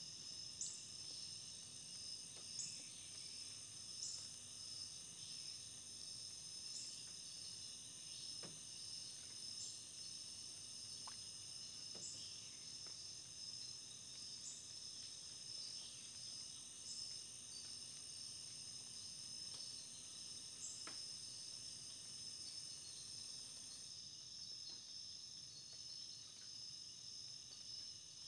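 Faint, steady high-pitched insect trilling in the background, with short high chirps every few seconds.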